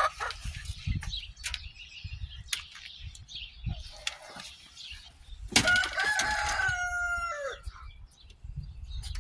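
A rooster crows once, about five and a half seconds in: one call about two seconds long whose last note falls away. Scattered light clicks and a low rumble run around it.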